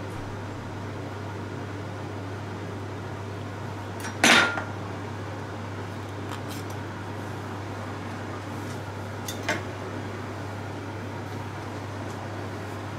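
Kitchen handling sounds over a steady low hum: a sharp clatter about four seconds in and a lighter knock about nine seconds in, as a knife and butcher's twine are handled on a wooden cutting board.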